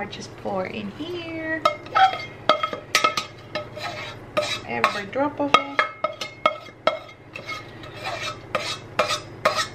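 A spoon stirring granola ingredients (oats, nuts, seeds, coconut oil and honey), scraping and clinking against the dish in quick, irregular strokes.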